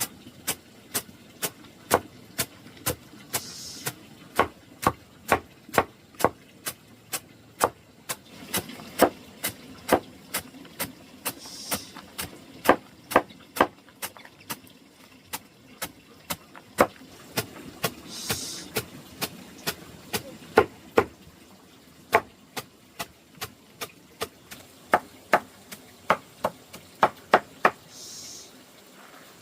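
A long series of sharp knocks, struck at a bit under two a second with small gaps between runs, like repeated chopping or hammering blows. Four short, high swishing hisses come in between, about a quarter, two fifths, three fifths and nearly all the way through.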